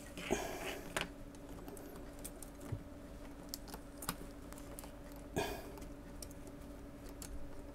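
Small clicks, taps and two short rustles of hands handling a Commodore 1530 cassette deck mechanism while a new rubber drive belt is hooked around its pulleys, over a faint steady hum.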